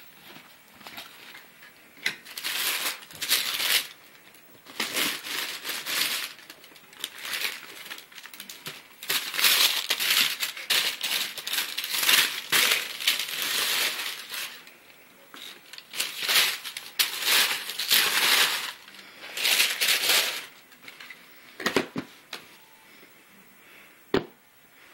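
Paper wrapping inside a shoebox being crinkled and rustled by hand in repeated bursts as a sneaker is pulled out, followed by a couple of sharp knocks near the end as the shoe is set down.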